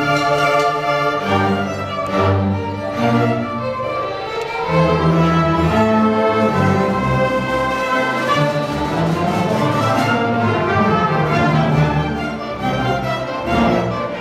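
Orchestral strings (violins, cellos and double basses) playing a bowed passage: held higher notes over a low line that moves from note to note.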